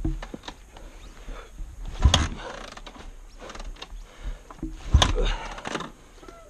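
Dirt bike being kick-started: two hard kicks about three seconds apart, each a thump followed by a short rush of the engine turning over without catching.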